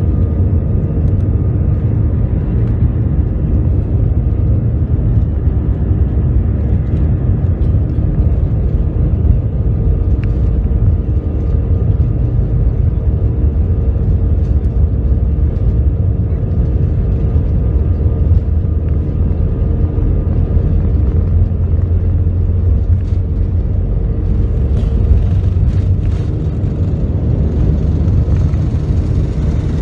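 Airbus A320 heard from inside the cabin over the wing during its takeoff run: the jet engines at takeoff power make a loud, steady rumble with a steady whining tone over it. The tone fades away near the end as the aircraft lifts off.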